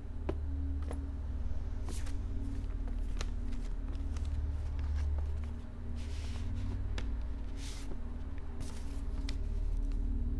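Paper rustling in short bursts from about six seconds in as a letter is handled and unfolded, with a few light clicks earlier, over a low steady musical drone.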